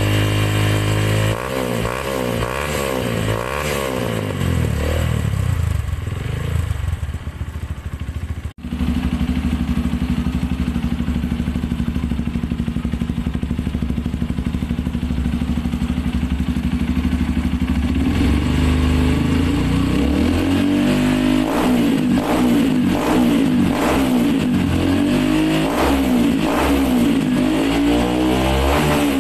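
Honda four-stroke dirt bike engines through aftermarket slip-on mufflers: the first is blipped up and down in quick, repeated revs. After a sudden break at about a third of the way in, a second bike with a stainless racing muffler idles steadily, then is revved again and again from about two thirds of the way in.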